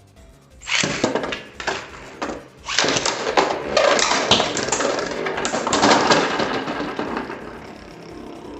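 Beyblade Burst spinning tops whirring and rattling in a plastic stadium, with rapid clacking as they strike each other. The noise starts suddenly about a second in, is densest in the middle, and eases off near the end.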